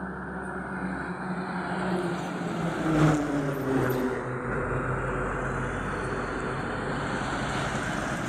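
Heavy trucks passing close by on a road: diesel engine drone and tyre noise, with the engine pitch dropping as one goes past about three seconds in, then another truck running past near the end.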